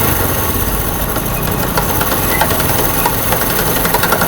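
Honda CD70's single-cylinder four-stroke engine running in first gear at light throttle, with a rapid repeating knock from the gearbox. The knock comes from a broken tooth on the first-gear countershaft gear. It is quite loud.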